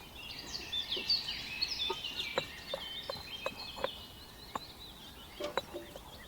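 Birds chirping and twittering in a quick, busy run of high notes that thins out after about four seconds, with scattered light sharp knocks from the middle onward.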